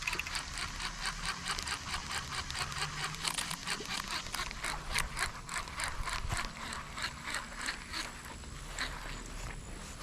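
Fishing reel being cranked to retrieve line, a steady run of quick mechanical clicks about five a second that thins out near the end.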